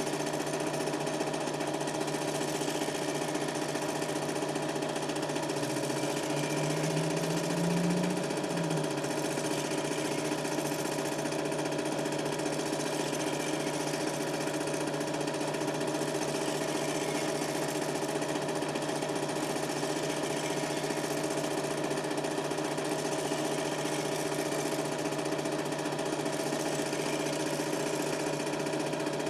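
Super 8 film projector running: a steady mechanical whir and rattle of the film-transport mechanism at an even level, with a brief low hum swelling about seven seconds in.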